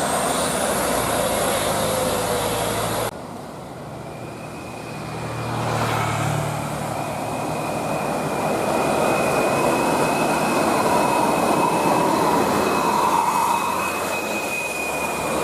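Large road vehicles, buses, passing with a heavy rush of engine and tyre noise. The sound cuts off abruptly about three seconds in, then builds again. A steady high whine holds from about four seconds in.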